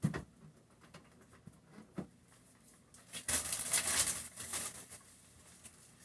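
Crinkling and rustling of plastic wrap and paper packing material being handled and pulled off a new dehumidifier, loudest from about three seconds in. There is a sharp tap at the start and another about two seconds in.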